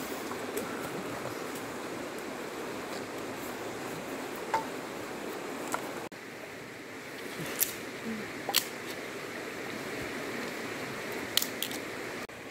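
Sticks of firewood clicking and knocking together now and then as they are laid out in a pile, over a steady rush of running river water.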